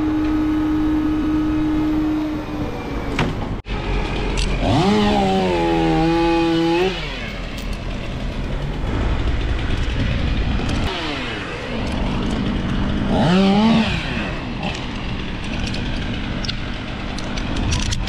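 An engine running steadily, revving up twice and dropping back: once about five seconds in, held for a couple of seconds, and again briefly about thirteen seconds in.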